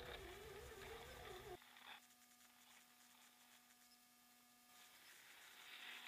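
Electric motor and gear whine of an Axial SCX10 RC crawler, wavering in pitch with the throttle, cutting off suddenly about one and a half seconds in. Then near silence with a faint steady hum, and near the end a rising hiss of the crawler's tyres churning through snow.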